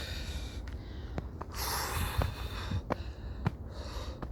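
A hiker breathing hard while climbing uphill: long, hissing breaths close to the microphone, with footsteps on the trail ticking in between.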